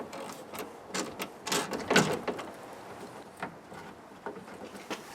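Irregular clicks and scrapes of a van door's inner trim layer being pried and pulled away by hand, busiest about two seconds in, then a few single ticks.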